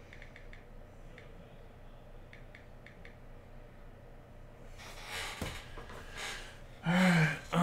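A man breathing out hard through his nose, then a held, hummed vocal sound near the end. Before that, only a low room hum with a few faint clicks.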